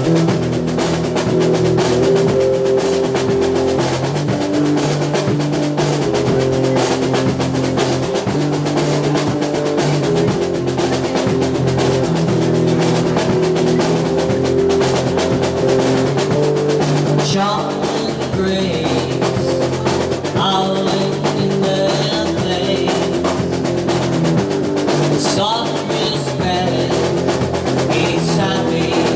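Live rock band playing: electric guitar through an amplifier and a drum kit with snare, kicking along steadily. About halfway through, a voice sings over the band.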